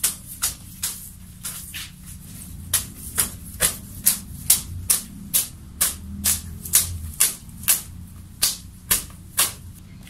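A bundle of fresh medicinal herbs struck against a person's body again and again, about two sharp leafy swats a second, in a ritual cleansing of the aura.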